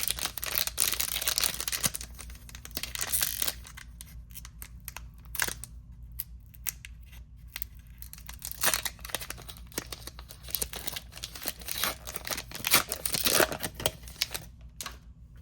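Foil Pokémon booster pack torn open and crinkled, followed by intermittent rustling and light clicks as the cards are taken out and handled. The tearing and crinkling is densest in the first couple of seconds, with another loud spell of rustling near the end.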